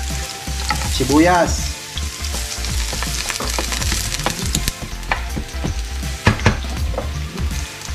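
Sliced onion sizzling in oil with ginger in a non-stick frying pan at the start of a sauté, with a plastic spoon clicking and scraping against the pan as it is stirred.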